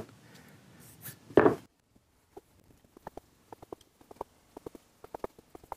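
A steel chisel being stroked along a leather strop on a wooden block, making light, irregular clicks and taps. One louder brief sound comes about a second and a half in, before the run of clicks.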